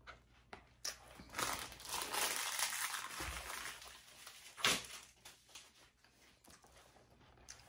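Close crinkling, crunching rustle lasting about two and a half seconds, then a single sharp click a little after the middle.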